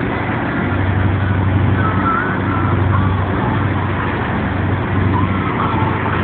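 Boat engine running steadily at cruising speed, a low, even hum, over the rushing wash of the wake behind the boat.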